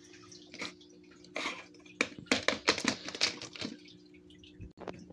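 Scattered light clicks and knocks from plastic toys and the camera being handled on a wooden table, most of them in the middle of the stretch, over a faint steady hum.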